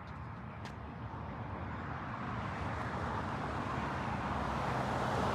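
Road traffic noise: a steady rushing sound over a low rumble that swells louder.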